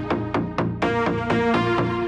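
Electronic music: a fast, even run of synthesizer notes, about five or six a second, over a low pulsing bass. The high end briefly drops away about half a second in.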